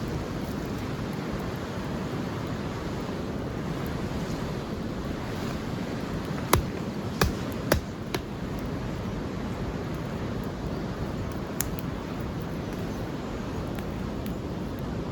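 A steady rushing noise, with four sharp clicks in quick succession about halfway through and one more a few seconds later.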